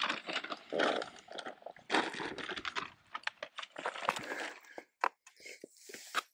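Paper map rustling and crinkling as it is unfolded and handled, a dense irregular crackle for the first few seconds that thins to scattered separate crackles later on.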